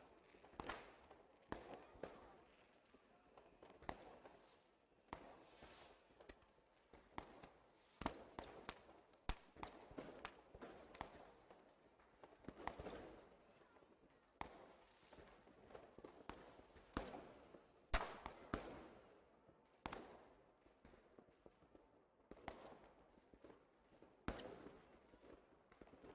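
Fireworks going off: a long run of sharp bangs at irregular intervals, each trailing off in a brief echoing tail. The loudest comes about two-thirds of the way through.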